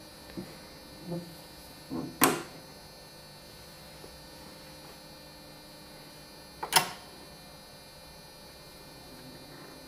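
A few short, sharp clicks and knocks over a low steady hum, the loudest about two seconds in and again near seven seconds; the music box is not playing.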